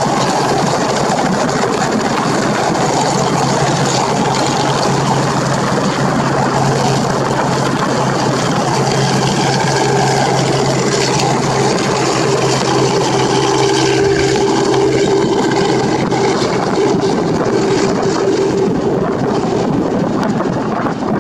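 Robinson R44 Raven II helicopter lifting off from a hover and climbing away, its main rotor and piston engine running steadily at takeoff power. A steady low hum fades about halfway through as a higher tone comes up.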